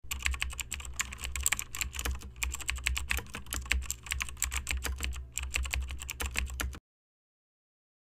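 Typing sound effect: rapid, irregular keyboard keystroke clicks that stop abruptly near the end.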